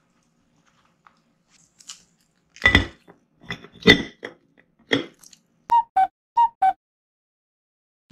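Plastic cling film crinkling and crackling as it is stretched and pressed over a glass bowl, loudest in a few bursts about three to five seconds in, followed by four short squeaks.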